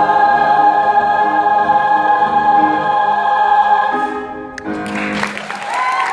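Large mixed choir holding a long final chord, which cuts off about four seconds in; audience applause and cheering then start.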